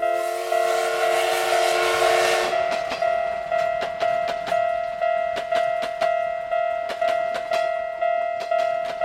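Japanese level-crossing warning bell ringing steadily, about two strikes a second. For the first two and a half seconds a train horn sounds a chord over a rush of noise, then the passing train's wheels clatter over the rail joints.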